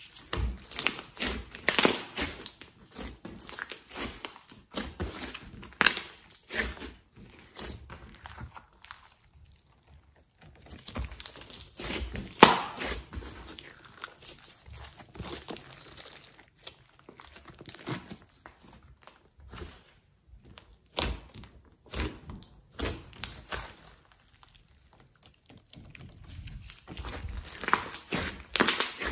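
Hands stretching, folding and pressing a large mass of glossy slime: irregular sticky crackling and popping in bursts, with short pauses between handlings.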